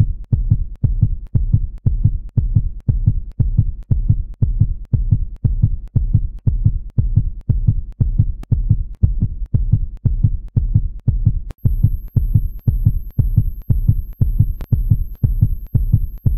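Heartbeat sound effect: a steady run of low, quick thumps at about two to three beats a second.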